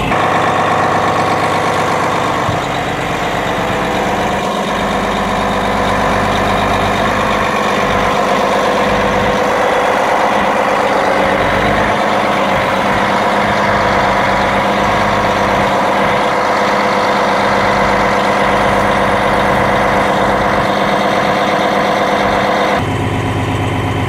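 Caterpillar D8T dozer's diesel engine running steadily, its tone shifting slightly near the end.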